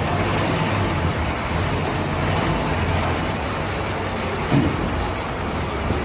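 Scania F310 coach's diesel engine running as the coach pulls slowly forward: a steady low drone. A short knock sounds about four and a half seconds in.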